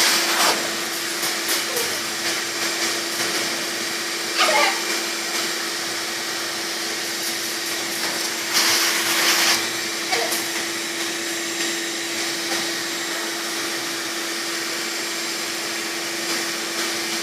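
Shop vac blowing air: a steady rushing with a constant motor whine, and a few short louder sounds over it about four and a half, nine and ten seconds in.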